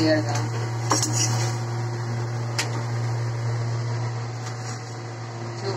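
A steady low kitchen hum, with two sharp clinks of metal utensils on an iron griddle, about one second and two and a half seconds in.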